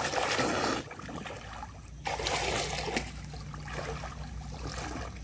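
Creek water splashing and sloshing as people wade and lunge through it chest-deep. There are two louder bursts of splashing, one in the first second and one about two seconds in, with quieter sloshing between them.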